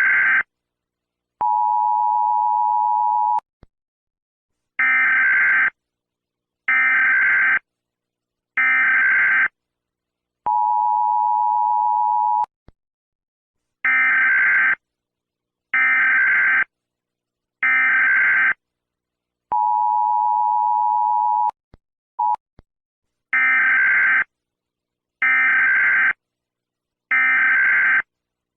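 Emergency Alert System tones. Groups of three short, screechy digital data bursts alternate with about two seconds of a steady two-note beep, repeating over and over with brief gaps between.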